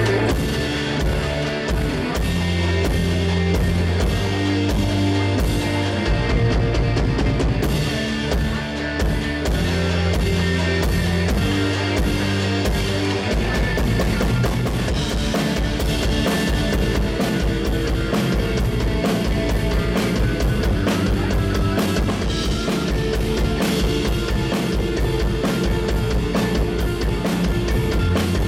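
Live rock band playing loud: electric guitar, bass guitar and drum kit. About thirteen seconds in the playing turns busier, with denser drumming.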